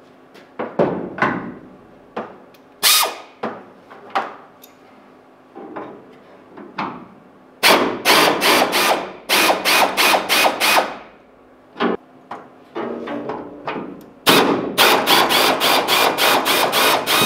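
Pneumatic tool on an air hose, worked on the bolts of a 1971 Chevy C10's hood, run in rapid trigger bursts about three a second. There are two long runs of bursts, the first around the middle and the second near the end. Before them come scattered clicks and knocks of tool on metal.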